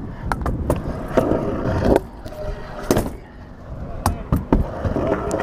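Stunt scooter wheels rolling over a skatepark's tarmac and ramps with a steady rumble, broken by sharp clacks as the wheels and deck hit ramp edges and transitions: several in quick succession in the first second, one around three seconds in and a cluster around four seconds in.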